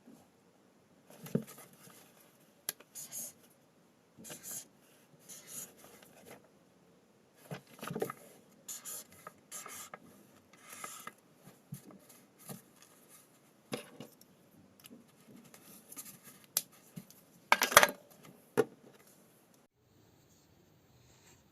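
A writing tool scratching on paper in short, irregular strokes, with a few sharp clicks; the loudest burst of scratching and taps comes near the end, and the sound dies away shortly before the end.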